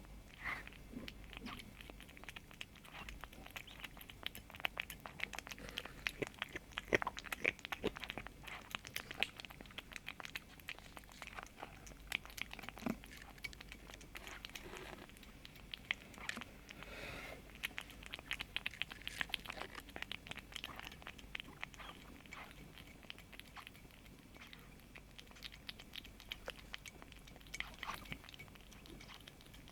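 A kitten chewing and crunching food: many quick, irregular crunchy clicks.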